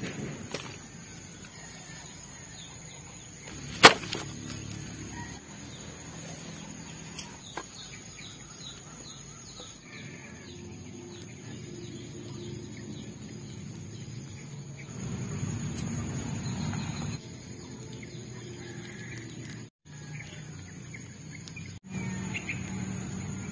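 Birds chirping over a steady high-pitched whine, with a few sharp knocks of a machete striking firewood in the first seconds, the loudest about four seconds in.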